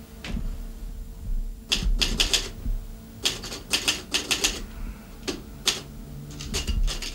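Portable typewriter being typed on: runs of quick key clacks broken by short pauses, starting a little under two seconds in.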